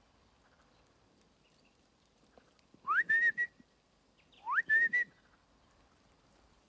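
Two loud whistles about a second and a half apart, each a quick upward glide into a short held, slightly wavering note.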